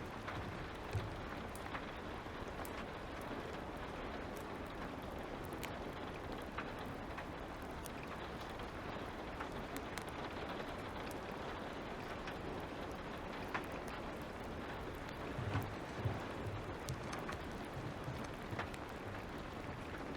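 Steady light rain with scattered sharp crackles of a wood fire. A few soft low thumps come about a second in and again near three quarters through.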